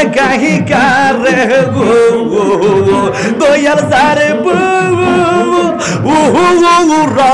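A man sings a Bengali zikir (Islamic devotional chant) into a microphone through a PA system. In the second half he holds long, wavering notes.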